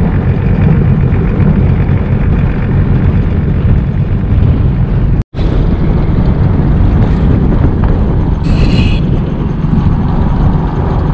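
Sea-Doo jet ski engine running steadily at idle. The sound cuts out for an instant about five seconds in, and there is a short hiss about three seconds before the end.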